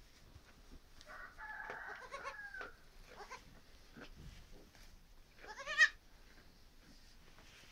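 Newborn goat kid bleating: a longer wavering cry about a second in, then a short, louder bleat that rises and quavers near the end.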